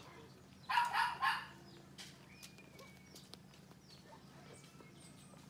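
A dog barks three times in quick succession about a second in, over a faint, steady low hum.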